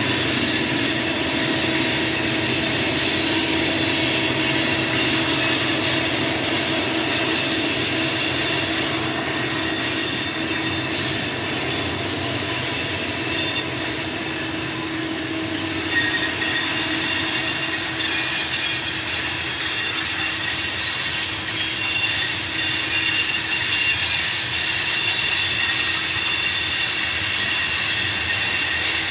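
Loaded coal hopper cars rolling across a curved steel trestle, their wheels squealing on the curve with several steady high tones over the constant rumble of wheels on rail.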